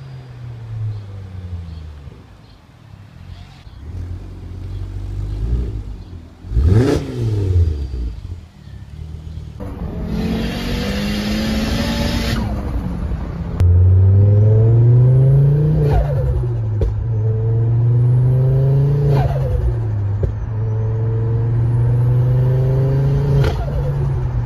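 Ford Focus RS Mk2's turbocharged 2.5-litre five-cylinder accelerating past on a street, its engine pitch rising and then falling as it passes. Then it is heard from inside the cabin, revving up hard through the gears, the pitch dropping with a sharp crack at each of three shifts.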